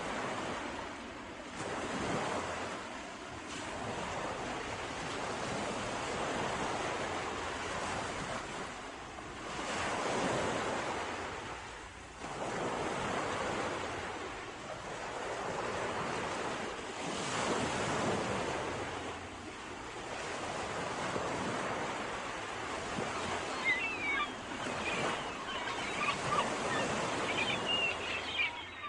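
Sea waves surging and washing ashore, the surf swelling and falling back every few seconds.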